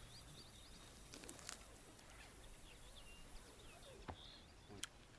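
Quiet outdoor ambience with faint, short bird chirps repeating throughout, and two sharp clicks near the end.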